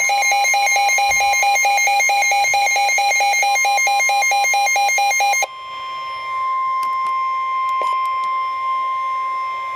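Emergency weather alert: a weather radio sounds rapid, even electronic alarm beeps, which stop about five and a half seconds in. A quieter steady single tone of about 1 kHz follows and cuts off at the end. This is the NOAA Weather Radio warning alarm tone that comes before a severe thunderstorm warning message.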